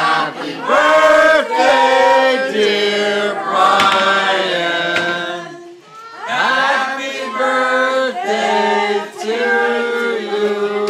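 A group of people singing a birthday song together, in held, sustained notes, with a short break for breath about six seconds in.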